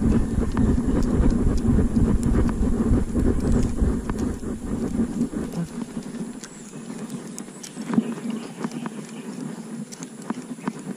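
Close handling and rustling noise with a heavy low rumble for about the first five seconds, then lighter scattered clicks and taps.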